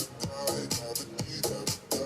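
Background electronic music with a steady, fast beat.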